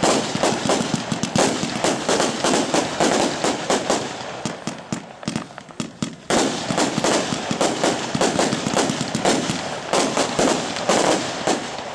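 Argento-Hermes 240-shot, 20 mm-calibre compound fireworks cake firing, with many sharp reports a second in quick succession. The firing thins out about five seconds in and picks up again just after six seconds.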